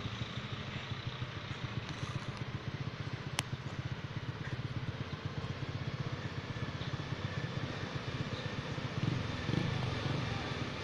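A small engine running steadily, with a fast even pulse, and a single sharp click about three seconds in.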